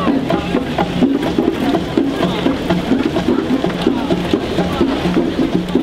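Music with a steady drum beat and short, repeating low notes, with faint voices behind it.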